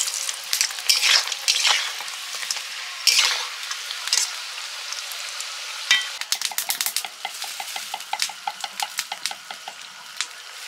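Papri discs deep-frying in hot oil in a wok, the oil sizzling in surges as a metal spatula stirs them. About six seconds in there is a sharp knock, then a quick run of crackling pops.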